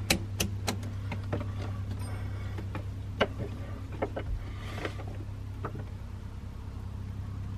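Scattered light clicks and taps from handling multimeter probes and leads against the battery cabling and fuse terminals, the sharpest about three seconds in, over a steady low hum.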